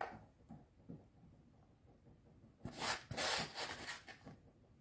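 Soft handling noises from shredded mozzarella being sprinkled by hand onto bread pizzas on a wooden board, with a louder stretch of rustling from about three to four seconds in.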